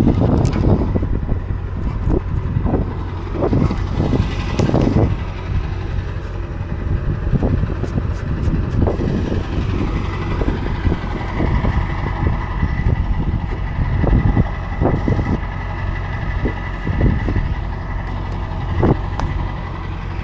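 A truck's engine running steadily, with scattered knocks and clunks over it.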